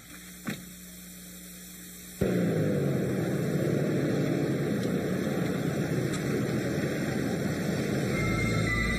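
Loud steady rumbling noise that starts suddenly about two seconds in, after a quiet stretch with a faint hum and a single click. Dramatic music begins near the end.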